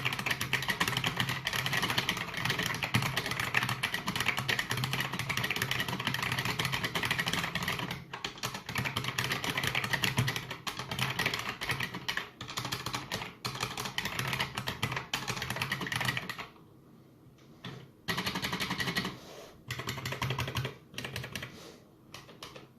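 IBM Model M2 buckling-spring keyboard typed on fast: a dense, unbroken clatter of key clicks, which stops for about a second and a half some two-thirds of the way through and then comes back in shorter bursts.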